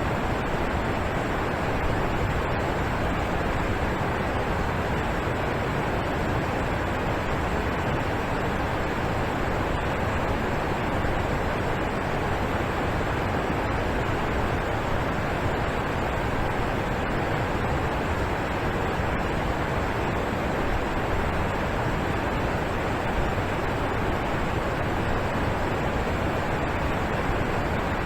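Alpine waterfall rushing and splashing in a steady, unbroken roar of falling water.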